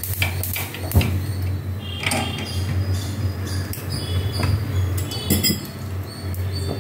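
Mustard seeds popping and crackling in hot oil in a kadai, with irregular sharp pops over a steady low hum. The popping is the sign that the oil is hot enough for the tempering.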